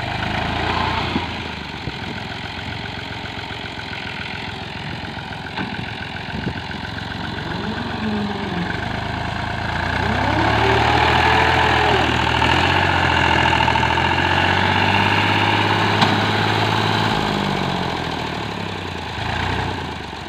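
Farm tractor's diesel engine running under load as the stuck tractor tries to climb out of the field, its note rising and falling several times and getting louder for several seconds from about ten seconds in.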